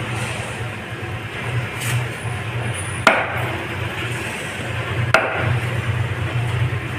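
Two sharp cleaver chops through grey emperor fish onto the cutting block, about two seconds apart, over a steady low hum.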